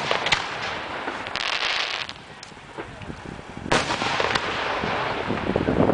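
Aerial firework shells bursting: several sharp bangs, the loudest just under four seconds in, with a hissing crackle about a second and a half in and a quick run of small pops near the end.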